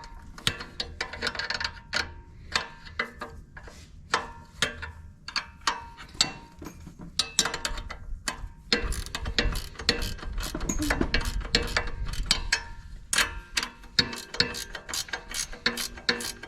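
Socket ratchet wrench clicking in short, irregular runs while working the 13 mm chain adjuster bolts on a 125cc ATV, with denser clicking about halfway through.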